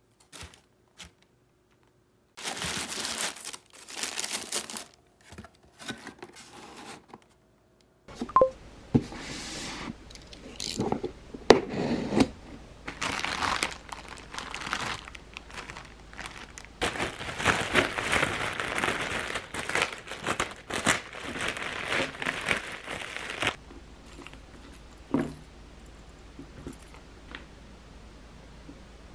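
Hands crinkling and rustling wrapping: tissue paper around a boxed shoe, then a thin clear plastic bag being opened and pulled off a pair of jelly sandals. The plastic crinkling is near-continuous for about fifteen seconds and stops a few seconds before the end.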